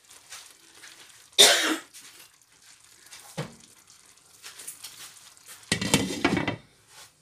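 A glass lid is set onto a granite-coated cooking pot about six seconds in, clattering and ringing briefly on the rim. Earlier, about one and a half seconds in, there is a single short, sharp burst of noise, the loudest sound here, and a small click a couple of seconds later.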